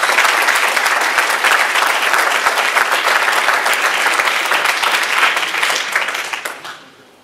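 An audience applauding with dense, steady clapping that dies away near the end.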